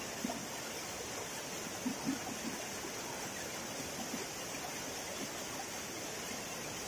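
Waterfall pouring into a plunge pool: a steady rushing hiss of falling water, with a few brief knocks about two seconds in.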